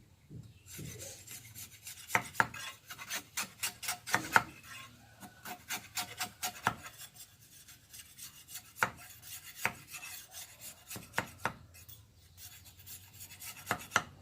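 A hand tool scraping and rubbing against a piece of bamboo in quick, uneven strokes, with a few sharper clicks, as the bamboo is shaped and cleaned.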